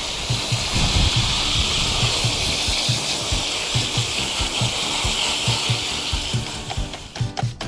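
Steady hiss of a water spray, as in pressure-washing the dismantled washing-machine tub parts, stopping shortly before the end, over background music with a steady beat.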